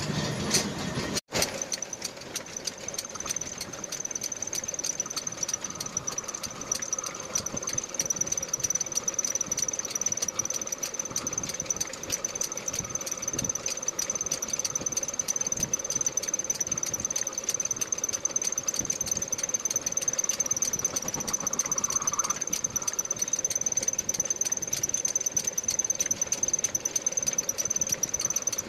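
Metal lathe machining a steel rotavator axle: a steady high-pitched squeal over a fast, even ticking.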